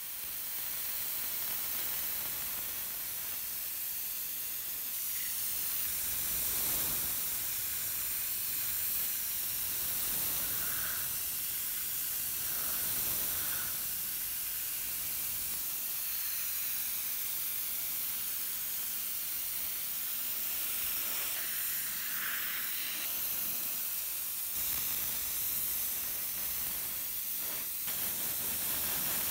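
Airbrush spraying dark brown paint onto a model locomotive's metal body shell: a steady hiss of compressed air and paint spray that starts suddenly and keeps on with only slight changes.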